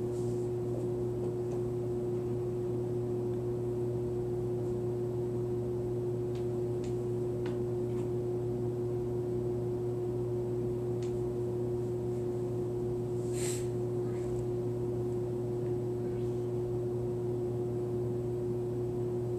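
Steady machine hum in a small room, holding one constant pitch throughout, with a few faint ticks and a short hiss about thirteen seconds in.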